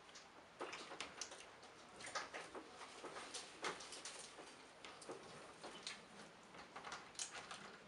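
Snow crab legs and shrimp being cracked and peeled by hand: a run of small, irregular shell crackles and clicks.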